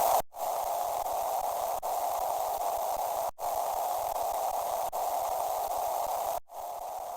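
A bell ringing continuously as a harsh, noisy buzz, looped over and over. It cuts out for an instant about every three seconds and restarts, and comes back quieter after the last break near the end.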